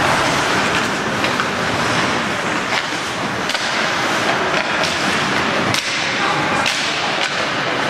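Ice hockey game play: a steady arena hiss broken by about half a dozen sharp clacks and knocks of sticks, puck and boards.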